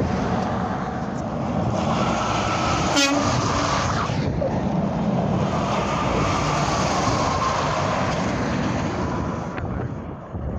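Tractor-trailers passing on a highway: steady tyre and engine noise with a faint steady whine, and a brief sharp knock about three seconds in.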